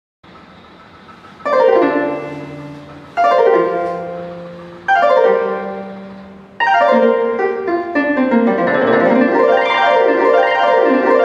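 Demo song playing from a DOREMiDi SM-10 MIDI sound module in a piano sound: three struck chords about a second and a half apart, each left to die away, then from about six and a half seconds in, continuous flowing playing with quick runs of notes.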